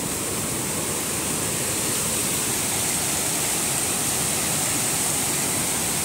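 Steady rushing of a waterfall in full flood, a continuous even wash of water noise.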